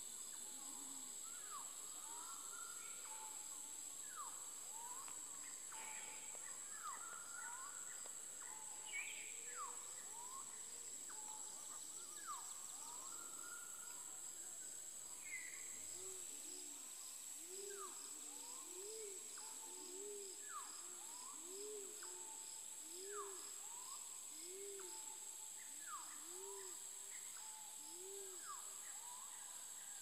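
Forest birds and insects: a steady high-pitched insect drone under many short, down-slurred bird whistles. From about halfway, a low rising-and-falling note repeats about once a second.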